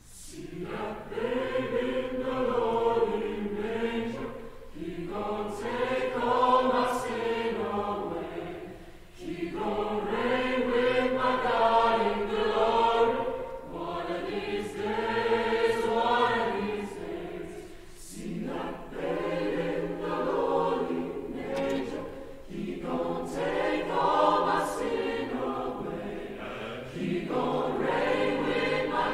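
Mixed choir of men and women singing, entering just after a quiet moment and going on in phrases of about four seconds with short breaks between them.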